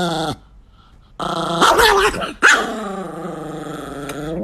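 Dog growling in long, drawn-out stretches, with a short pause soon after the start and a sudden louder outburst about halfway through.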